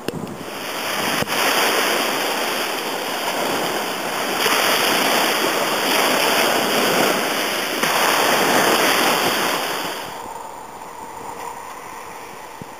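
Sea waves breaking and washing, a hiss that swells in about three surges and dies down near the end.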